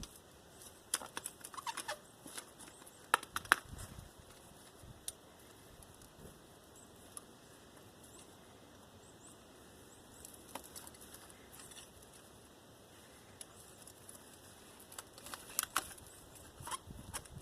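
Scattered clicks and scrapes of copper windings being worked loose from an old electric motor's armature, busiest in the first few seconds and again near the end.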